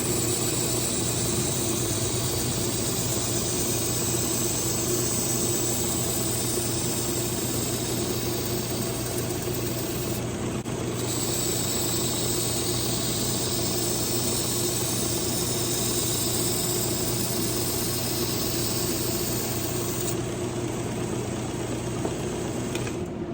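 Work Sharp Ken Onion Edition belt sharpener running with its blade grinding attachment: a steady motor hum under the hiss of a kitchen knife's edge being drawn across the abrasive belt in two long passes with a short break between them. The hiss stops about three seconds before the end while the motor keeps running.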